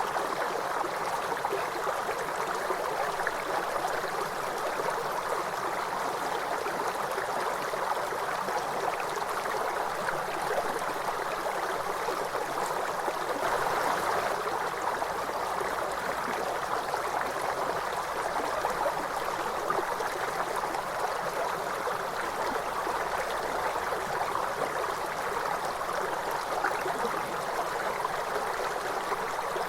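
River water flowing and rushing steadily, an even splashing hiss that swells a little about halfway through.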